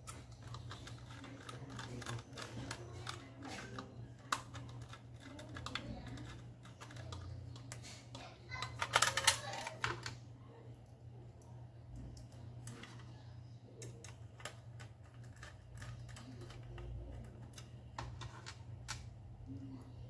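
Scattered light clicks and taps of small plastic and metal laptop parts being handled, with a denser burst of rattling clicks about nine seconds in, over a low steady hum.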